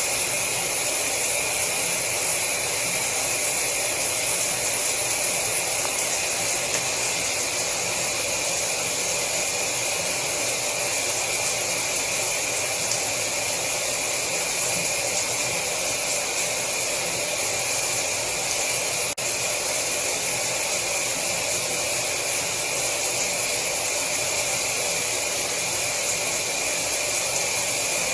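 Shower water running steadily, the spray hissing evenly, with one momentary dip about two-thirds of the way through.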